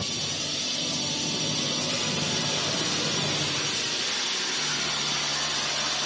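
Sustained hissing magic-energy sound effect that starts abruptly and holds steady, with a low drone joining about four and a half seconds in.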